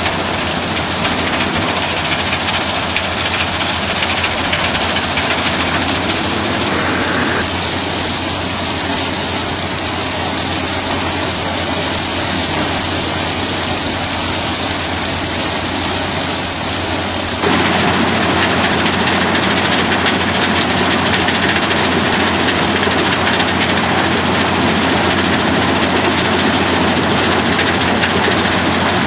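Industrial machinery running steadily: a Flo~Cait material separator and its conveyors sorting logging debris, a steady engine-like hum under a continuous hiss. The sound changes abruptly twice, about seven seconds in and a little past halfway.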